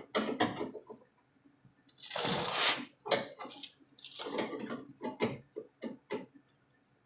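Sheet-metal patch panel being handled and test-fitted against a car body: irregular metallic knocks, taps and clinks, with a longer scrape of metal on metal about two seconds in.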